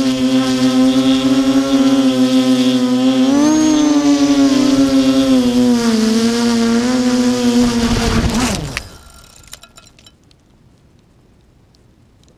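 Armattan Tilt FPV quadcopter's brushless motors whining, the pitch rising and dipping with throttle. About eight and a half seconds in, the whine drops steeply as the motors spin down and stop, with the quad down in the grass.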